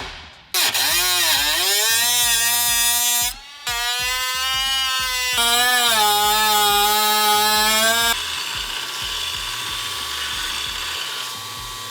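Handheld power cutting tool whining as it cuts the shifter hole through the car's sheet-metal floor, its pitch sagging and recovering under load, over background music. After about eight seconds the whine gives way to a steady hiss.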